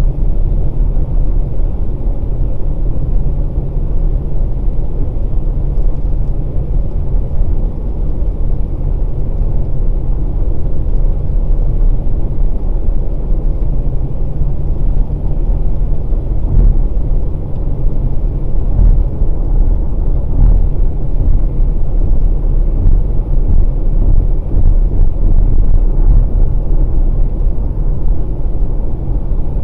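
Steady low rumble of a Volkswagen Passat Variant 1.6 TDI driving on a wet road: tyre and road noise over the diesel engine, with a few faint knocks about two-thirds of the way through.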